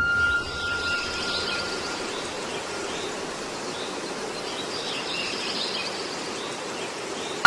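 Steady background hiss with faint high chirps, like birds or insects outdoors, twice over.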